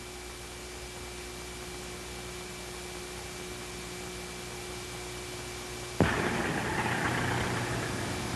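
Old film soundtrack with no speech: a steady hum with fixed tones under a faint hiss. About six seconds in, a sharp click, and the hiss becomes louder and brighter.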